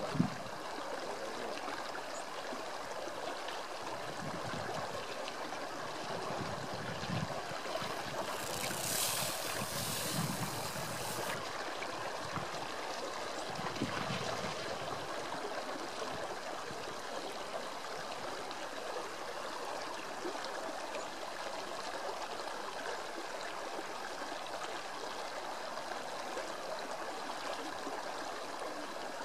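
Shallow river rushing steadily over stones, with a brief louder hiss about a third of the way through.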